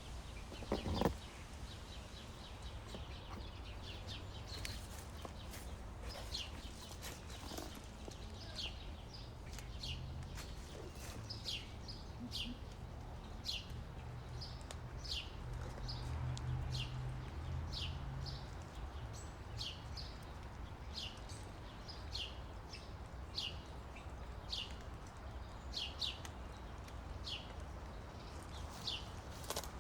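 A small bird calling over and over: short, high chirps that fall in pitch, about one a second, over a low steady rumble. A single thump about a second in is the loudest sound.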